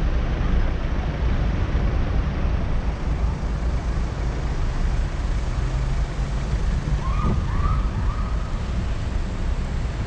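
Motorcycle engine running steadily at low revs, idling and then rolling forward slowly in traffic. A few short high rising tones sound briefly about seven seconds in.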